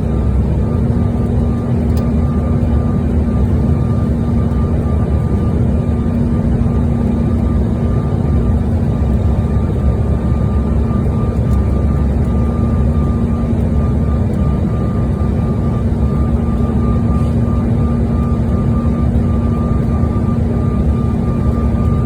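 Airliner cabin noise in flight: a steady rushing drone with a low hum and a thin, higher whine.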